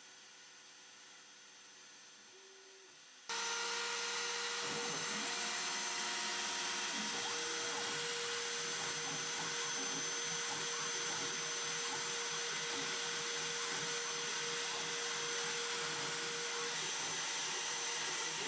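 4-axis CNC mill cutting gear teeth with a small end mill under flood coolant: a steady hiss of cutting and coolant with a constant spindle whine. It comes in suddenly about three seconds in, after a faint hum.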